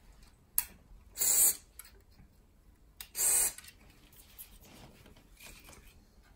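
Two short hisses of an aerosol lubricant spray, each about half a second, sprayed through a straw nozzle onto an electric scooter's rear wheel so that it stops squeaking; a sharp click comes before the first.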